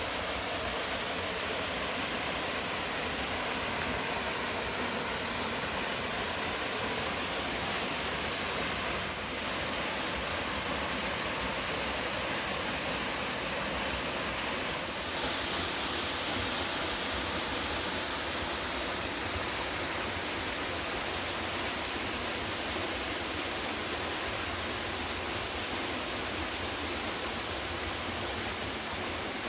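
Steady rushing of water from a 15 m straight-drop waterfall.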